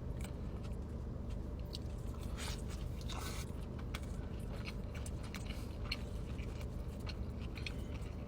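Close-miked eating: a person biting and chewing food, with scattered short crunches and wet mouth clicks over a steady low hum.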